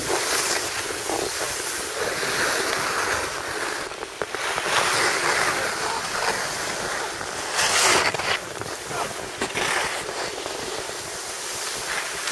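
Skis sliding over packed snow: a steady hiss of the edges on the groomed surface, with a louder scrape about eight seconds in.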